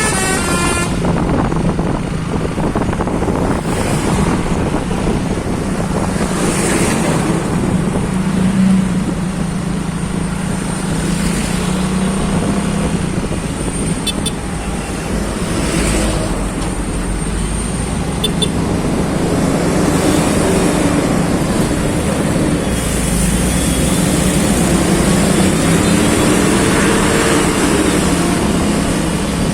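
Road traffic noise with a steady engine hum and passing whooshes. The last notes of a multi-tone basuri telolet bus horn fade out in the first second.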